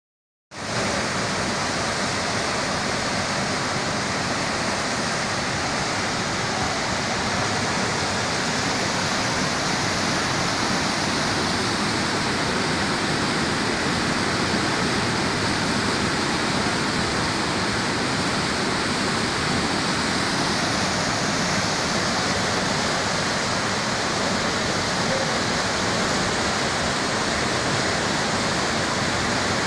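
Muddy floodwater from a cloudburst rushing through the streets as a flash-flood torrent, a steady, unbroken rush of water.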